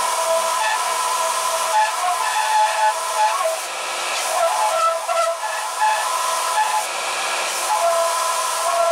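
Belt sander running with a half-inch stainless steel turbo flange pressed against the abrasive belt: a steady loud hiss with wavering squealing tones as the metal is ground, surfacing the weld-warped flange flat. It goes briefly lighter about three to four seconds in, as the part is lifted off to check it.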